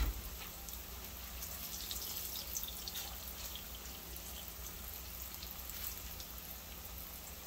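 Tortilla wedges frying into chips in shallow oil in a pan, the oil sizzling steadily with a light scattered crackle.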